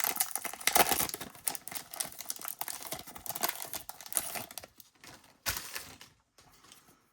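Plastic trading-card wrapping crinkling and tearing as a baseball card blaster box and its pack are ripped open: dense crackling for about four seconds, one more short rustle about five seconds in, then only faint handling.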